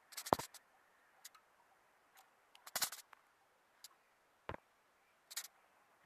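Several faint, sharp clicks and taps at irregular intervals, a small cluster at the start and another about three seconds in, with single ones in between.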